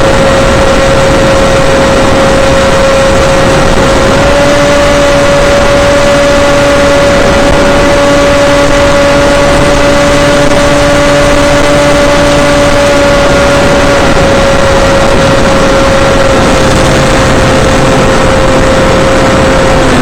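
Onboard sound of an FPV aircraft in flight: its motor and propeller whine at a steady pitch over loud wind rush. The pitch steps up slightly about four seconds in and eases back down in the last few seconds.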